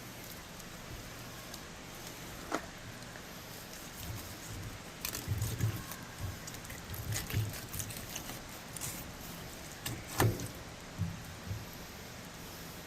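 Handling sounds of trout being cleaned on a cutting board: scattered taps, knocks and dull thuds at irregular times, the loudest about ten seconds in, over a steady hiss.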